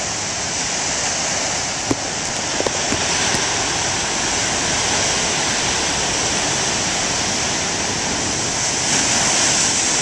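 Heavy surf: large ocean waves breaking and churning into whitewater, a steady rushing roar with no let-up, with a few faint clicks about two to three seconds in.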